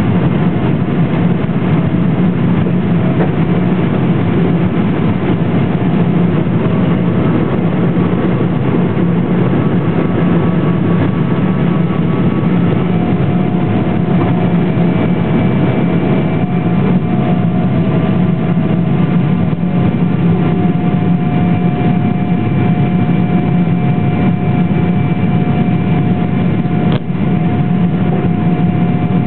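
Boeing 777-200ER's GE90 turbofan engines at full climb power, heard inside the cabin over the wing just after takeoff. A loud steady roar over a low hum, with a few thin whining tones that shift in pitch about halfway through.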